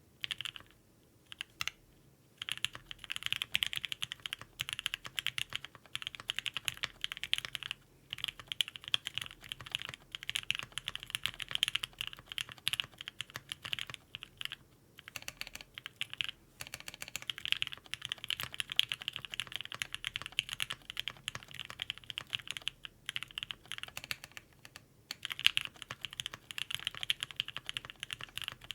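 Fast, continuous typing on a CannonKeys Bakeneko60 custom mechanical keyboard with lubed and filmed H1 switches on an FR4 plate and GMK keycaps. It gives a dense stream of keystroke clacks with a few short pauses.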